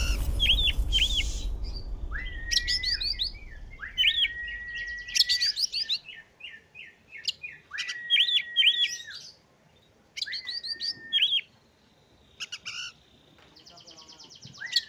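Oriental magpie-robin calling in repeated phrases: a quick cluster of short rising chirps, then a long level whistle, about every two to three seconds. A low rumble fades out in the first few seconds.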